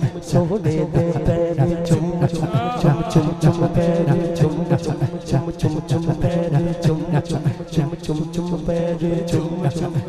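Devotional naat singing over a PA: a male voice sings wavering, ornamented lines over a steady held drone, with a quick steady beat of sharp clicks.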